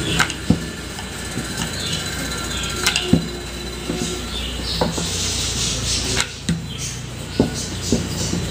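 Wooden rolling pin rolling out a disc of wheat-flour dough on a rolling board, with scattered sharp knocks of wood on the board. A steady low hum runs underneath.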